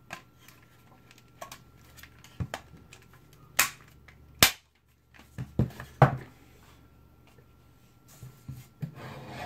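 Plastic retaining clips of a Nissan car radio's front panel snapping into place as the panel is pressed onto the unit's body: a series of sharp clicks, the loudest two about three and a half and four and a half seconds in, then a couple more a second or so later.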